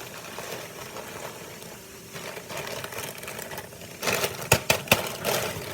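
Kitchen handling noise: a steady low hum, then about four seconds in a clatter of several sharp knocks and scrapes from utensils or containers being handled.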